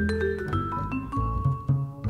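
Vibraphone and double bass playing jazz: a quick run of struck, ringing vibraphone notes over plucked bass notes.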